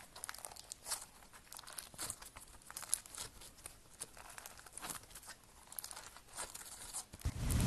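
Slime being squeezed and poked, giving off irregular crackling clicks and small pops. A loud rushing noise cuts in near the end.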